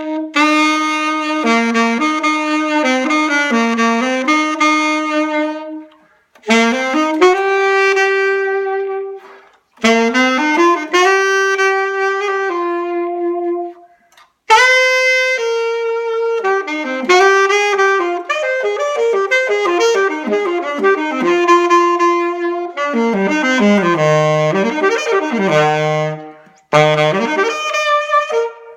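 Saxophone with a Yamaha mouthpiece played through scales and runs in several phrases with short breaths between them, with repeated sweeps down to the low notes and back near the end. Its tone is sort of honky: the player finds this mouthpiece resistant and on the verge of squeaking.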